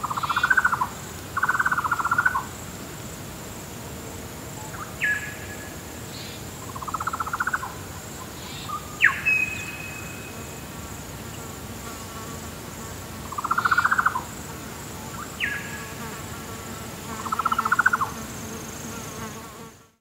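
Meadow birds calling: five buzzy, rattling calls about a second long, and three sharp notes that fall in pitch, one of them ending in a held whistle. Under them runs a steady high insect drone, and everything fades out near the end.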